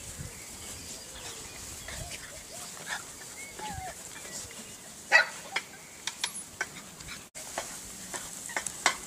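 Puppies whimpering and yipping in short scattered squeaks over a steady hiss, with a few sharp clicks past the middle and near the end.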